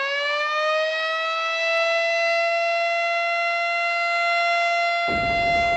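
Siren sounding one long steady tone with strong overtones, its pitch still settling from the wind-up at the start: the siren that marks the moment of the Indonesian proclamation commemoration, sounded during the salute to the flag.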